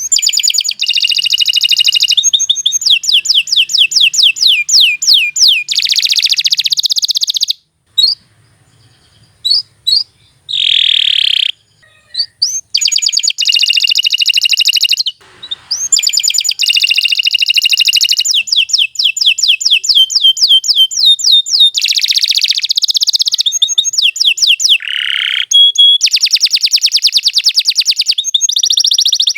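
Domestic canary singing loudly in long phrases of fast trills and rapid runs of repeated notes, with a few brief pauses between phrases.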